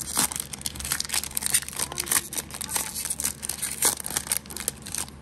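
Foil Pokémon booster pack wrapper crinkling in the hands as it is torn open, a dense run of sharp crackles.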